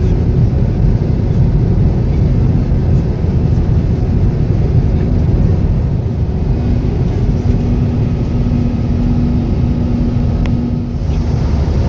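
Steady low rumble of a vehicle in motion, heard from inside. A faint steady hum joins in from about six and a half seconds and stops a second before the end.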